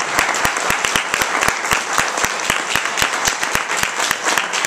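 Theatre audience applauding: many hands clapping densely and steadily.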